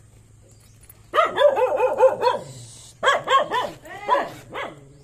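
Dogs barking in two quick runs of repeated barks, starting about a second in and again about three seconds in.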